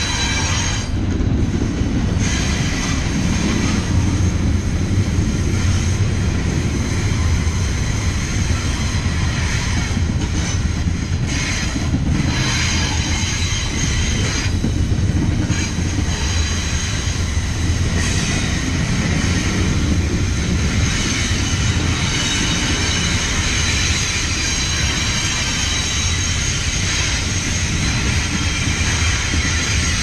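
Double-stack container train's steel wheels running on the rail as the well cars pass, a steady low rumble under a loud high-pitched squeal from wheel-on-rail friction. The squeal fades briefly a few times and comes back.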